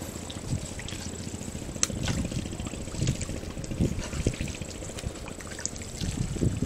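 Seawater lapping and sloshing around the bamboo poles of a fishing platform, with a few faint clicks scattered through.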